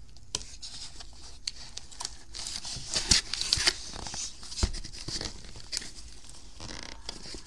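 Cardboard shipping box being opened by hand: tearing and scraping of cardboard with rustling of the flaps, broken by sharp knocks as the box is handled, the loudest about three and four and a half seconds in.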